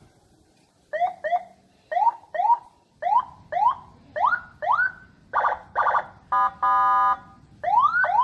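Senken CJB100BD electronic siren sounding through a Senken YD100i horn speaker, cycling through its tones. It gives short rising whoops in pairs, then two buzzy blasts, then a steady horn tone about a second long. Near the end the rising whoops come back.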